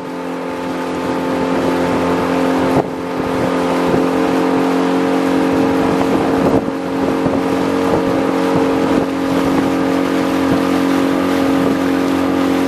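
Small boat's motor running steadily underway, with two brief dips in level.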